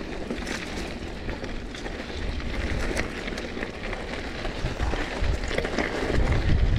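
Mountain bike riding down a dirt singletrack: tyres rolling over gravel and roots with many small ticks and rattles from the bike. A low rumble of wind on the action camera's microphone grows louder about five seconds in as the bike picks up speed.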